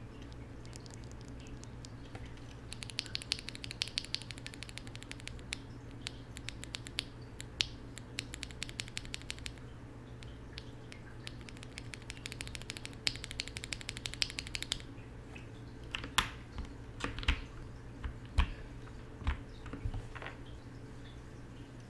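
Durock linear mechanical keyboard switches, lubed with 205g0 and filmed, clacking as they are pressed off the keyboard. Two fast runs of presses come first, then slower, louder single presses near the end.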